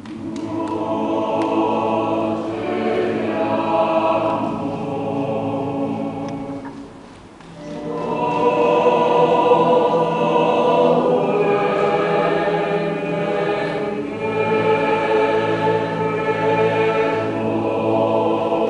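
Mixed choir of men's and women's voices singing a sustained choral piece, with a brief break between phrases about seven seconds in.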